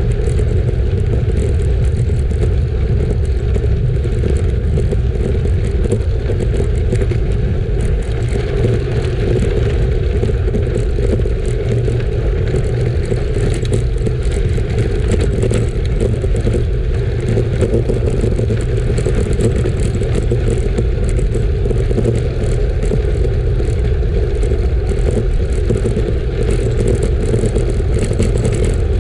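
Road bike riding at speed: steady wind rush on the microphone over the rolling noise of its tyres, with a fine crackle throughout.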